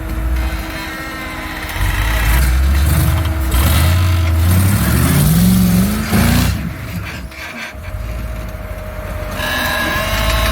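Off-road vehicle engine revving hard while climbing a rock obstacle. The pitch rises for a couple of seconds around the middle, then drops back suddenly to a lower, steadier running sound.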